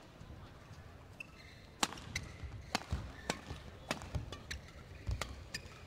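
Badminton rally: sharp cracks of rackets hitting the shuttlecock, about one every half second to second, starting about two seconds in, with the players' footfalls thudding on the court.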